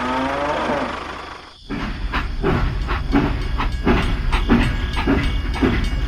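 A dubbed-in cow moo lasting about a second, then a steam-locomotive sound effect chugging in an even rhythm of about three to four chuffs a second over a low rumble.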